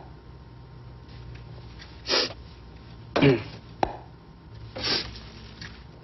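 A photo booth camera clicks sharply once, a little under four seconds in. Three short breathy noises from the people posing come about two, three and five seconds in. The middle one briefly carries a falling pitch.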